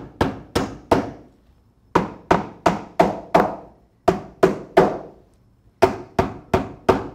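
Claw hammer driving nails through a metal splice template into a rubber conveyor belt and the wood plank beneath: sharp blows in bursts of three to five, about three a second, with short pauses between bursts.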